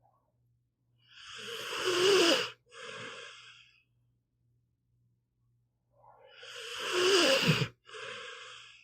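Pitbull snoring in its sleep: two snoring breaths about five seconds apart, each a long breath that grows louder, then a brief pause and a shorter, quieter breath.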